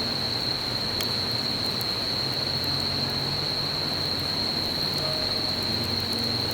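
An insect's steady high-pitched trill over an even hiss, with faint low background music notes.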